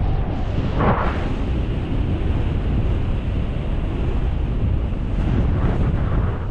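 Airflow buffeting the microphone in paraglider flight: a steady rush of wind noise, heaviest in the low end, with a brief stronger gust about a second in.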